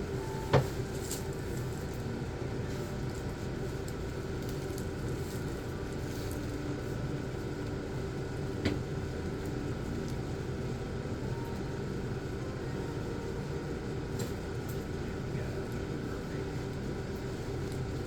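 Two short, sharp joint cracks from a chiropractic spinal adjustment, the louder one about half a second in and a weaker one about halfway, over a steady room hum.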